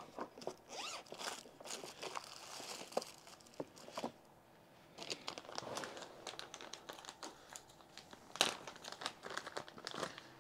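Rummaging by hand: irregular rustling and crinkling, as of plastic bags or packaging, with scattered clicks and knocks of small items being handled. There is a short lull about four seconds in, and a sharper click about eight and a half seconds in.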